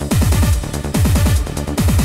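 Hard trance music: a fast roll of deep kick drums, each dropping in pitch, coming in runs of about a second, over hissing hi-hats.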